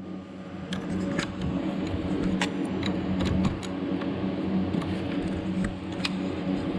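Scattered metallic clicks and clinks of hand tools and fittings as a boat's steering linkage is unhooked, over a steady low background hum.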